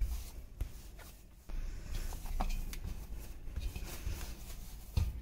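Hands kneading maize-flour dough mixed with chopped fenugreek in a steel plate: soft pressing and rubbing, with a few light knocks against the metal.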